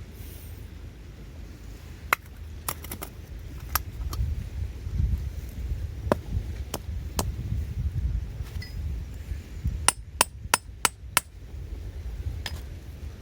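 Hammer tapping on metal: single sharp strikes every second or so, then a quick run of about five strikes near the end.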